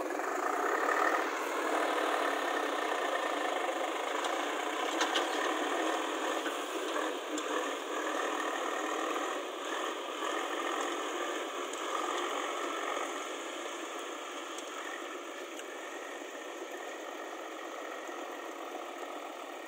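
Diesel engines of a farm tractor and a JCB 3DX backhoe loader running, then a tractor with a loaded mud trolley driving away, its engine gradually growing fainter.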